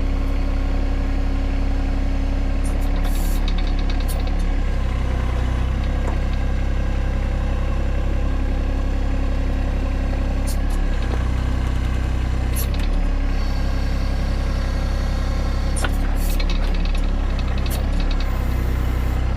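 John Deere 1025R compact tractor's three-cylinder diesel engine running steadily while the 260 backhoe's hydraulic controls are worked, the engine note shifting several times as the hydraulics take load. Occasional short clanks are heard.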